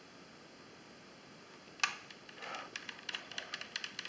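Quiet handling sounds of a screwdriver and a small plastic quadcopter frame as the last tiny lateral screw is put in: one sharp click about two seconds in, then a run of light ticks and clicks.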